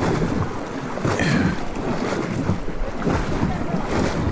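Horse wading through a river, water splashing and sloshing around its legs in an uneven rhythm, with wind noise on the microphone.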